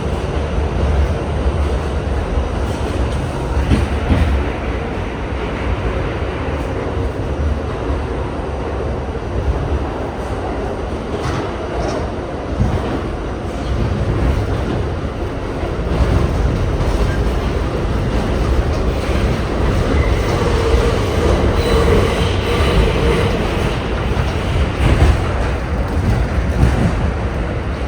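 R68 subway train running along the track: a steady low rumble with wheel clatter, growing louder about halfway through.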